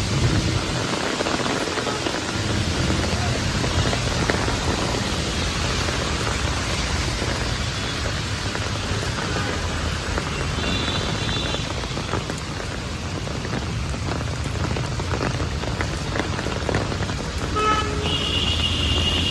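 Steady rain falling on a city street, with the low rumble of passing traffic. A brief high tone sounds about halfway through, and a louder high-pitched tone starts near the end.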